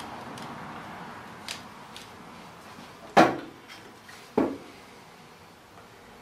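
Two loud metallic clunks about a second apart as a cast aluminium track part is handled and knocked down against the bench, each with a short ring. A few small clicks and handling noises come before them.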